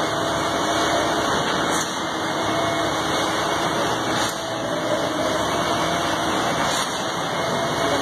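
Diesel engines of concrete boom pump trucks running steadily during a concrete pour, with a faint knock about every two and a half seconds.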